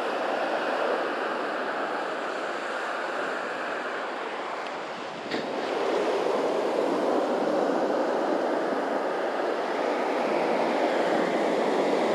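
Gulf surf washing up the beach at the shoreline: a steady rush of water that swells louder about halfway through, with one brief click a little after five seconds in.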